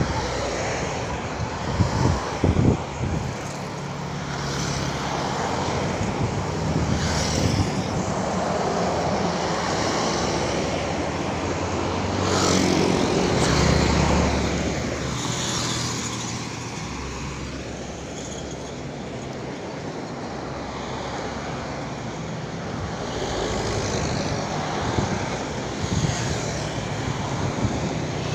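Road traffic going by: cars, a box truck and motorcycles passing on an open road, with one engine passing close and loud around the middle.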